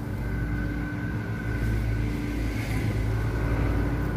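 A motor vehicle's engine running, a low steady rumble that slowly grows louder.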